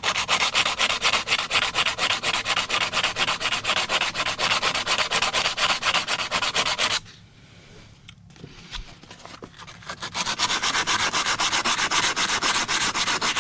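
80-grit sandpaper rubbed by hand over the steel of an old pipe wrench, in quick back-and-forth strokes several times a second. The strokes stop for about two seconds about seven seconds in, then start again.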